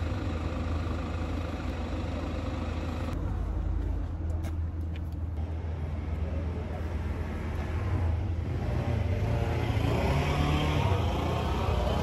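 A car driving: a steady low engine and road rumble, with the engine pitch rising about eight to ten seconds in as it speeds up.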